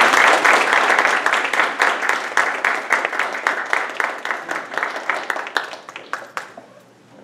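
A small audience applauding: dense hand claps that slowly thin out and die away about six and a half seconds in.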